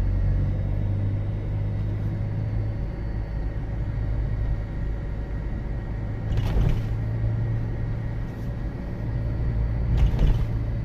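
Car cabin noise while driving in city traffic: a steady low engine and road hum, with two brief louder rushes of noise about six and ten seconds in.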